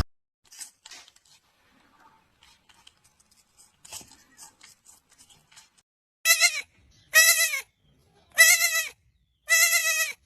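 A young goat or lamb bleating: four short, high-pitched bleats about a second apart, after a few faint clicks and rustles.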